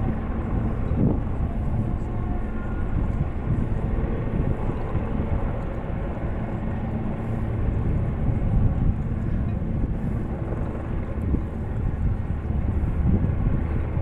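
Steady drone of two helicopters flying in formation at a distance, mixed with wind buffeting the microphone.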